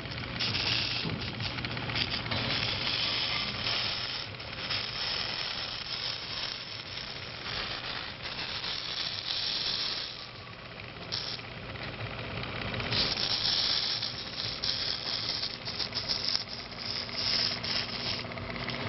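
Hissing, crackling sizzle as the fluxed underside of a circuit board passes over a molten lead solder wave, rising and falling in intensity, over a steady low hum.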